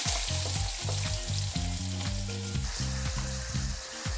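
Sliced onion sizzling in hot oil in a small saucepan, just after being dropped in; the steady hiss eases off slightly over the seconds. Near the end the onion is stirred with wooden chopsticks.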